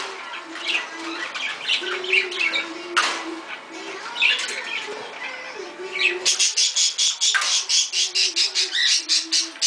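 Pet birds chirping and squawking while a salmon-pink cockatoo works at a metal cage-door clip with its beak, with a fast run of sharp clicking, about seven a second, over the last few seconds.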